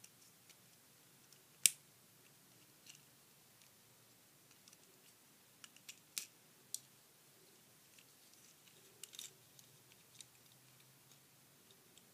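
Hard plastic parts of a small Transformers action figure clicking and snapping as it is twisted into robot mode by hand: one sharp snap near the start, then scattered lighter clicks and ticks, with a few clusters later on, as a tight-fitting part is worked loose.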